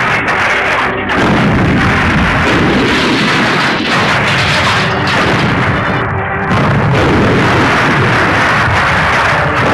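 A loud, dense, distorted mix of booming smash and crash sound effects layered over music, running almost without a break, with short dips about a second in and around six seconds in.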